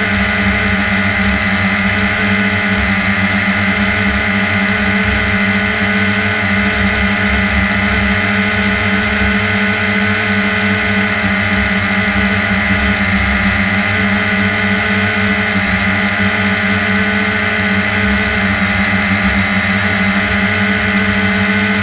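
Steady drone of an aircraft's propellers and motor in flight, holding a constant pitch, with a flickering low rumble of wind on the microphone.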